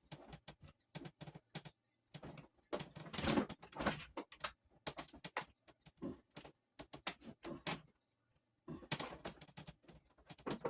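Irregular clicks, knocks and scrapes of plastic and metal being handled as screws are worked out of an electric pressure washer's plastic housing, with two longer rustling scrapes of the housing being turned over.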